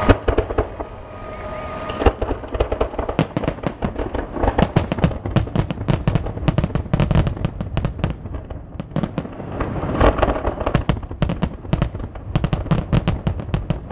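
Fireworks going off: a sharp bang at the start and another about two seconds in, then a dense run of rapid bangs and crackles.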